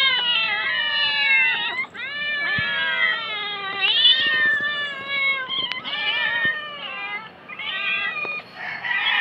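Several young cats meowing at once, their calls overlapping with hardly a break: begging for food from the person above them.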